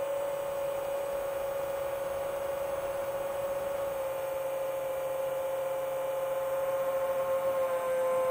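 Steady whine of a 7-inch FPV quadcopter's motors and propellers in cruise, one held tone with a fainter higher overtone, sinking slightly in pitch and wavering near the end.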